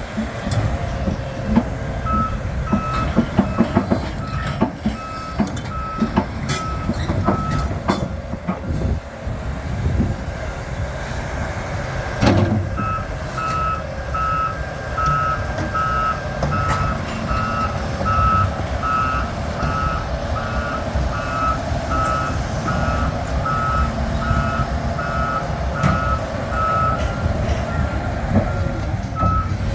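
Volvo EC550E crawler excavator running heavily, with scattered metal clanks and one loud knock about twelve seconds in. Its travel alarm beeps in a steady high tone, about one and a half beeps a second, from about two seconds in to eight, and again from about thirteen seconds on, a sign the machine is tracking.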